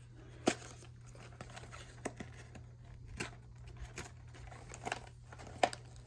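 Cardboard packaging being handled: scattered light taps and crinkles, with two sharper clicks, one about half a second in and one near the end.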